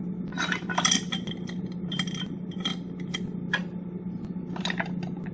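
Scattered light metallic clinks and rattles as a motorcycle rear wheel is worked back into position, its drive chain being fitted onto the sprocket and the brake caliper bracket lined up with the axle.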